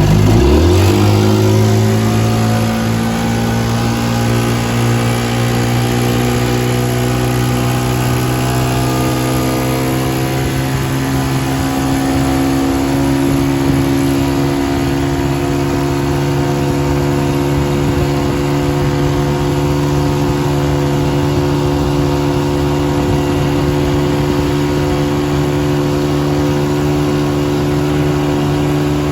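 A 1950 Corsair 7.5 hp two-stroke outboard motor, built by Scott Atwater, revs up sharply as the throttle opens, then runs at a steady held speed pushing the boat.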